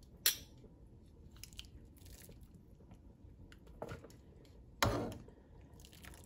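Kitchen tongs knocking and clicking against a pan of boiling sweet potato leaves as the leaves are lifted out. There are a few sharp knocks; the loudest comes about five seconds in.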